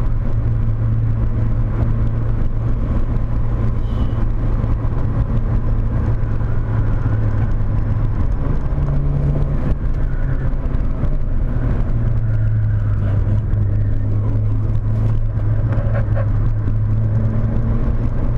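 Volkswagen Corrado 1.8 16V's four-cylinder engine pulling hard at lapping speed, a steady drone with tyre and road noise, heard from inside the car. The note rises briefly about nine seconds in, eases off for a couple of seconds, then holds steady again.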